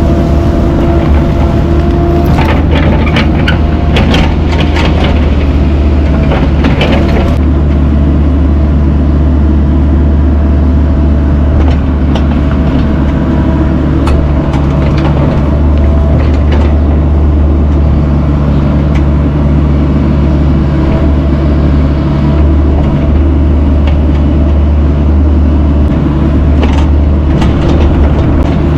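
Mini excavator's diesel engine running steadily and loud, with hard knocks and cracks of boulders being moved and set: a cluster of them a few seconds in and more near the end.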